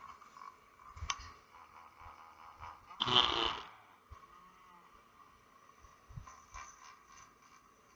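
Hippo giving a single short, loud grunt about three seconds in, with faint clicks and rustles around it.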